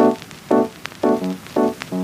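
Background music of short, evenly spaced pitched notes, about two a second.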